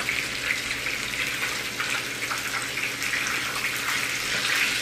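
Chicken pieces deep-frying in a pan of hot oil: a steady sizzle with fine crackling throughout.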